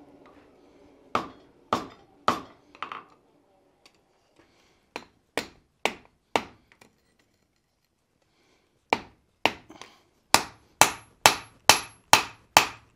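Hand hammer striking red-hot axe stock on an anvil: a few blows at a time with pauses, then a steady run of about two blows a second from about nine seconds in.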